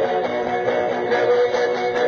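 Strummed guitar music, steady and continuous.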